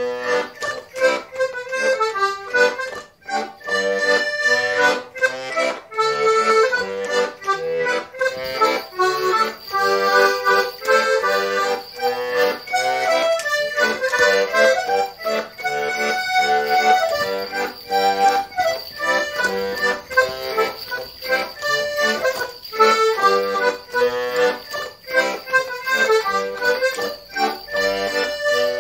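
Accordion playing a lively traditional morris dance tune, a running melody over chords with a steady beat.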